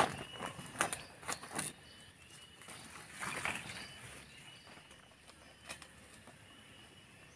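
Rustling and sharp knocks of someone climbing out of a dome tent onto forest leaf litter, loudest in the first second and a half, with another rustle about three and a half seconds in. After that it quietens to the steady high drone of cicadas.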